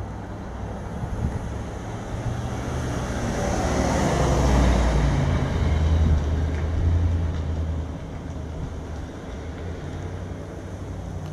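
A steady low engine hum, with a vehicle passing that swells and fades between about three and eight seconds in.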